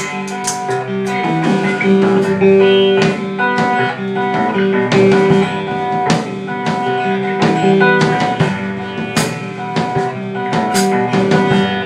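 Instrumental music: guitar playing sustained notes over a drum kit, with no singing.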